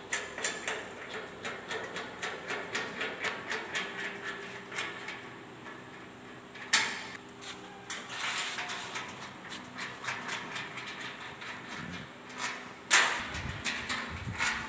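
Small metal clicks and rattles as nuts and bolts are undone on a steel hospital bed frame, with two louder metal knocks, one about halfway through and one near the end.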